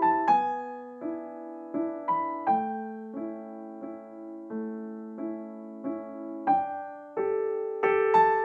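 Background music: a slow, gentle solo piano piece, with single notes and soft chords struck about once or twice a second, each ringing and fading.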